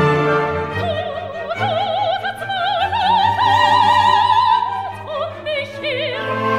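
An operatic voice singing an aria over an orchestra. It holds long, high notes with a wide vibrato, climbing slowly through the middle and falling near the end.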